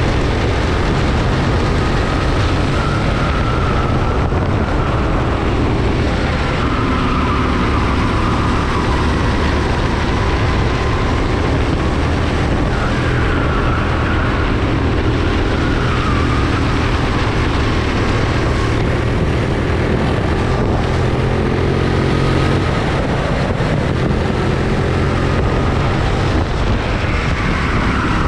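Go-kart engine running hard at racing speed, heard close up from the kart itself, its whine rising and falling several times as the driver accelerates and lifts through the corners.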